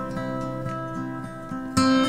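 Background music of plucked acoustic guitar: held notes ring, and a louder chord is struck near the end.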